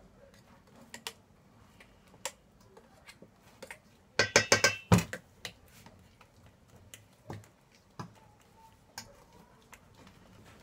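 A utensil clinking and scraping against a metal mixing bowl as cake batter is stirred: scattered light clicks, with a quick flurry of loud clinks about four seconds in.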